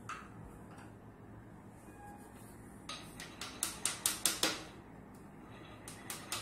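Hammer tapping quickly on wooden bed parts: a run of about nine sharp strikes at roughly five a second, growing louder, starting about three seconds in. A second run of strikes begins near the end.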